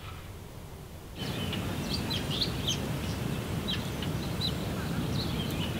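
Birds chirping outdoors: many short, high calls from several birds over a steady low background hum, which starts abruptly about a second in after a quieter stretch.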